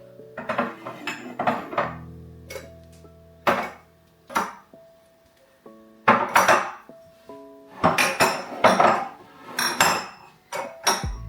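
Glass jars clinking and knocking against each other and the countertop as they are handled, in scattered bursts with a short lull in the middle. Soft background music plays underneath.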